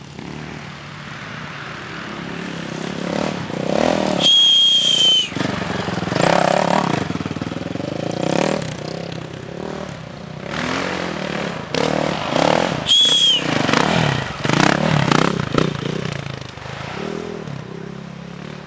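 Enduro dirt-bike engines revving hard and passing, rising and falling several times. Two high, clear whistle-like tones cut through: one about a second long around four seconds in, a shorter one around thirteen seconds in.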